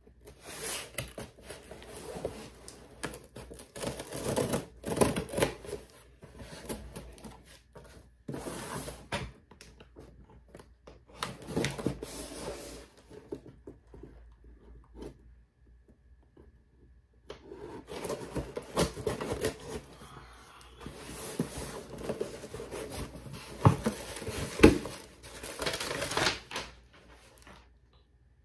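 Cardboard shipping box being opened with a knife: packing tape slit and torn, and cardboard flaps scraping and rustling, in irregular bursts with a quiet spell of a few seconds about halfway through.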